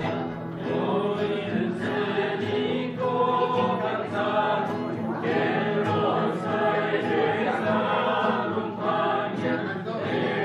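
A small group of men and women singing a song together, accompanied by an acoustic guitar.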